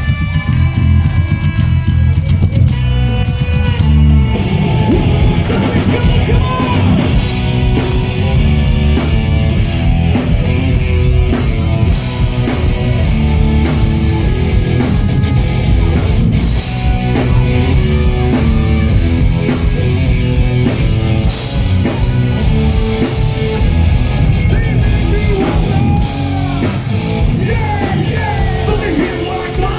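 Live rock band playing loud, with bass guitar, electric guitar and drums under a vocalist singing and shouting into the microphone; the sound grows fuller about four seconds in.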